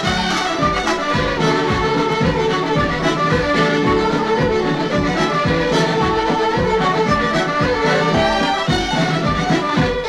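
Irish céilí band playing a fast traditional dance-tune medley, with fiddles and accordion carrying the melody over a steady, even beat. It is a 1950s recording transferred from vinyl.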